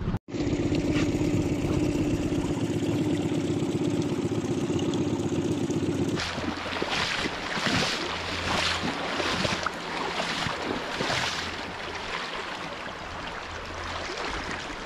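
A Yamaha outboard motor runs with a steady hum for about six seconds. Then, after a cut, river water laps and trickles over the stones in the shallows beside the boat.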